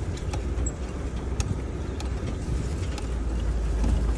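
Car driving slowly over a rough trail, heard from inside: a steady low rumble with scattered knocks and creaks.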